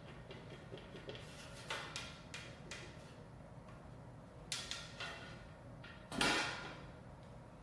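Small clicks and knocks of hands handling a compact metal PC case and its cables, with one louder knock and slide about six seconds in.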